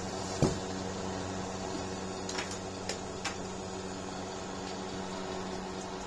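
Ningbo Singfun electric space heater running: a steady fan whir with a low electrical hum. A sharp click comes about half a second in, and a few fainter ticks follow two to three seconds in.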